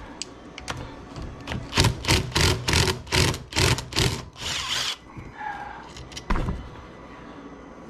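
Ratchet wrench working a crankcase bolt: a run of about seven short rasping strokes, a few per second, then a single knock about six seconds in.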